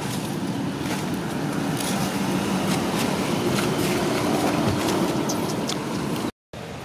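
A motor running steadily nearby, with faint scattered clicks and rustles; the sound drops out completely for a moment near the end.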